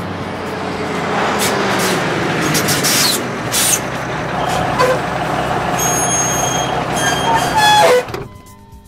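Truck sound effect: a heavy truck engine running as the tanker pulls up, with several short air-brake hisses. The sound cuts off suddenly near the end.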